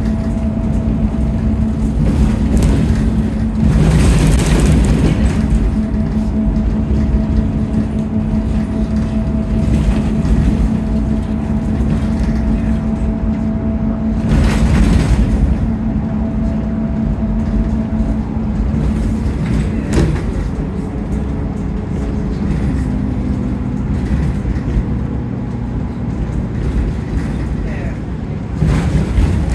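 Bus heard from inside near the front as it drives along a road: a steady engine and drivetrain hum with a higher whine over road noise. A louder rush of noise comes about four seconds in and again about fifteen seconds in.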